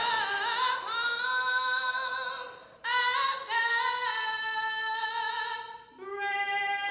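A woman singing unaccompanied, holding long high notes with vibrato, in phrases that break off about three seconds in and again near the end.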